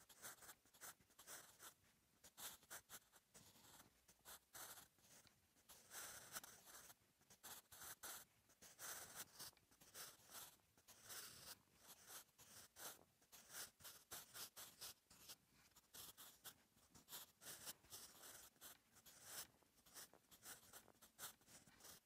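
Staedtler Mars Lumograph Jumbo 8B soft graphite pencil scratching softly across notebook paper while writing Korean cursive. Short, irregular strokes come in quick runs with brief pauses between letters.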